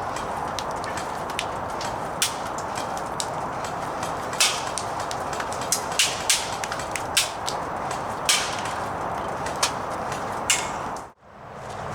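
Cybergun Thompson airsoft electric gun firing irregular single shots: about a dozen short, sharp cracks spaced half a second to a second and a half apart, over a steady background hiss. The sound cuts off abruptly near the end.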